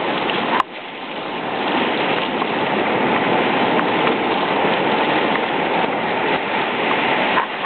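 River rapids rushing around a kayak: a steady, loud wash of whitewater. About half a second in there is a sharp click, and the water sound drops suddenly, then builds back over the next second.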